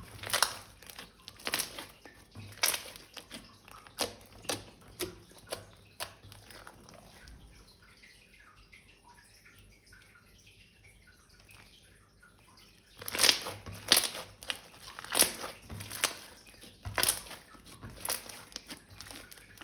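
Slime being squeezed and worked by hand, making a run of short sticky clicks and squelches. It goes quiet for several seconds in the middle, then the clicks come back louder near the end.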